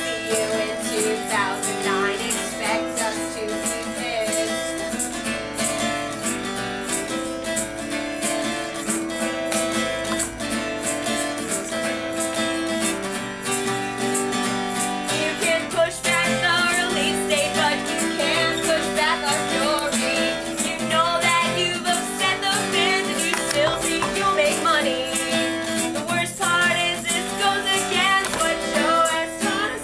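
Acoustic guitar strummed as song accompaniment, with a woman singing over it.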